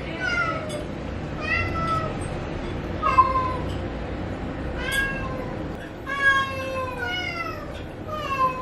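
A domestic cat meowing over and over for wet food: about seven drawn-out meows, each falling in pitch, one to two seconds apart.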